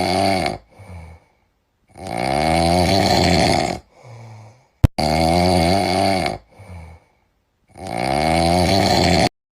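Persian kitten snoring in its sleep: four long, loud snores with softer breaths between them. A single sharp click comes about halfway through, and the sound stops abruptly just before the end.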